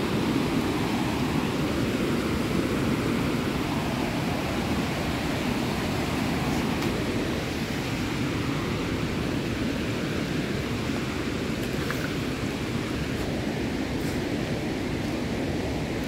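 Creek water rushing over low rock ledges, a steady rush of noise that slowly grows a little fainter.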